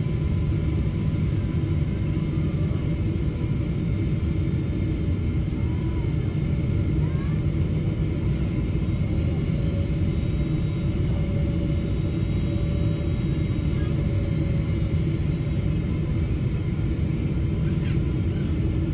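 Steady low roar of a jet airliner cabin on approach: engine and airflow noise with a faint steady whine above it, unchanging throughout.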